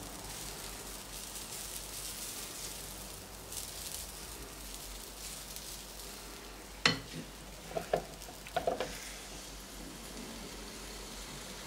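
Waffle batter sizzling on a hot electric waffle iron. About seven seconds in there is a sharp knock, then a few lighter knocks and clicks near eight to nine seconds, as the spatula taps and the lid is shut.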